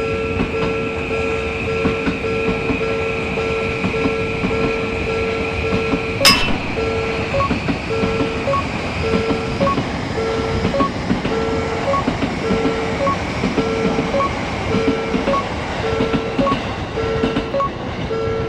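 Railroad crossing warning bell ringing in a steady series of dings, about two a second, while a train passes with a continuous rumble and clatter of wheels on the rails. A single sharp click sounds about six seconds in.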